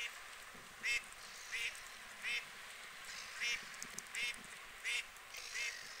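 Goose giving a series of short, evenly spaced honks, about one every two-thirds of a second, eight in all.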